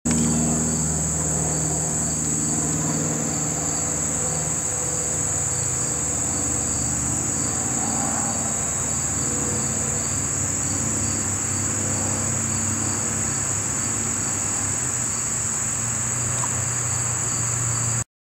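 Chorus of insects chirring in a continuous high, steady drone, with a second, fainter pulsing insect call beneath it and a low steady hum underneath; the sound cuts off abruptly near the end.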